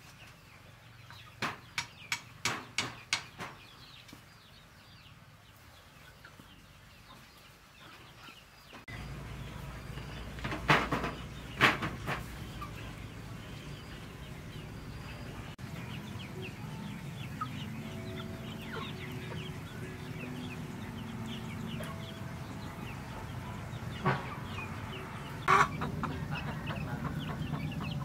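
Domestic chickens, a hen with her chicks, clucking and calling in short bursts. A quick run of about six sharp knocks comes a couple of seconds in.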